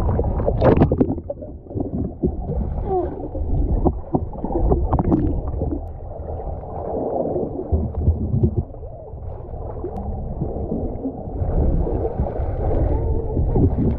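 Muffled underwater sound from a camera held under seawater: a low rumble with gurgling and scattered clicks and pops, and a splash about a second in.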